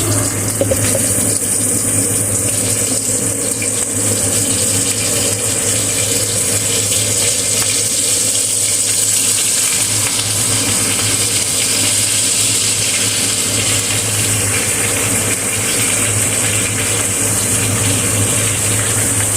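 Chicken pieces frying in a pan of hot oil: a steady, even sizzle of bubbling oil, over a low steady hum.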